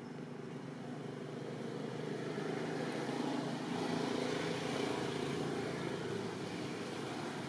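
A distant engine drone that grows louder through the first half and then eases off a little.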